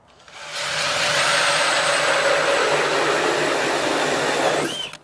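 Cordless drill spinning an Eskimo Pistol Bit ice auger as it bores through ice. It starts slowly, builds to full speed within about a second, then runs steadily with a constant hum and a dense grinding of ice chips. It stops just before the end.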